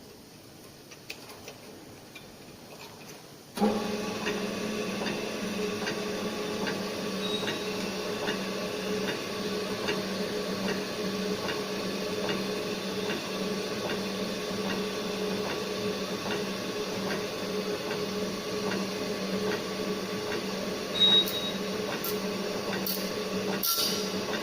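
Circular saw blade grinder switching on about three and a half seconds in and running with a steady hum. A regular tick comes about once a second as the blade is stepped from tooth to tooth, and the ticks grow sharper and louder near the end.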